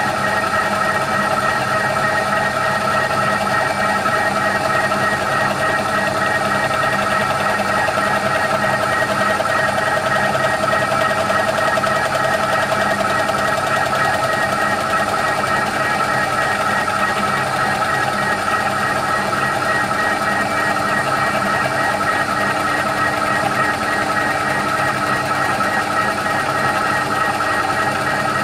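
TOS FNK25A milling machine running steadily, its face cutter taking a slow, light finishing pass across an aluminium cylinder head: a constant machine whine with several steady tones and no change in pitch.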